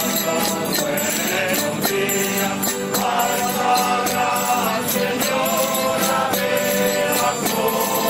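A group of voices singing a traditional devotional folk song together, accompanied by strummed guitars and lutes, with jingling percussion on a steady beat.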